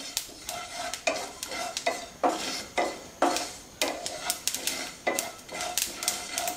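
Wooden spatula stirring black sesame seeds dry-roasting in a nonstick pan: a rhythmic scraping, about two strokes a second. Toward the end the seeds start to crackle and pop, a sign that they are roasted.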